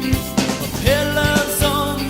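Rock band playing, with a regular drum-kit beat under guitar. About a second in, a held, wavering melody line comes in.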